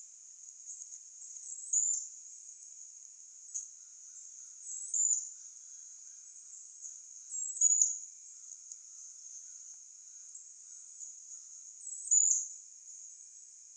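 Backyard outdoor ambience: a steady high insect trill, with a bird's short high chirp standing out four times, every three to four seconds.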